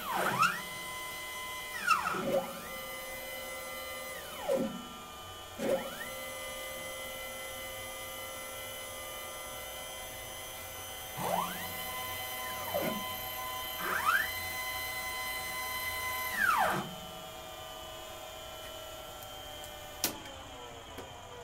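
Stepper motors of a Denford Micromill 2000 CNC mill jogging its axes: a pitched whine that glides up as each move starts, holds steady, and glides down as it stops. There are several moves in a row, one running about five seconds, and a single click near the end.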